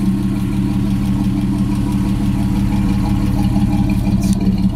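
1966 GMC one-ton truck's engine idling steadily, a constant low hum.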